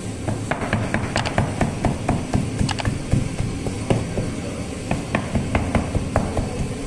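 Quick, regular taps, about four a second, of a plastic dough scraper's toothed edge striking rounds of flatbread dough on a bakery bench to stamp rows of dimples. The taps thin out briefly about four seconds in, then pick up again.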